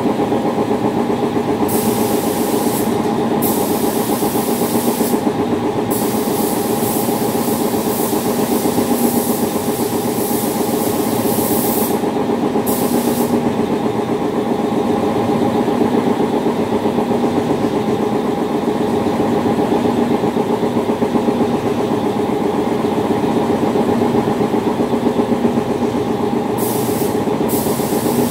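SATA 5000 RP compressed-air spray gun hissing in long trigger pulls while paint is sprayed: several long bursts in the first half, then again near the end. Underneath is a steady machine hum with fixed tones, which is the loudest sound throughout.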